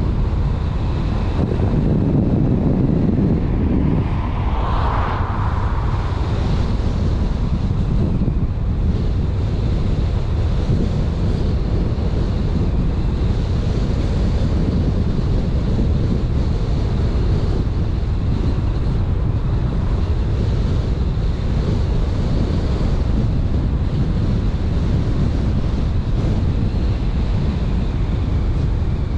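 Steady wind and road rumble of a car driving, mostly deep, with wind buffeting the microphone. A brief higher swell comes about five seconds in.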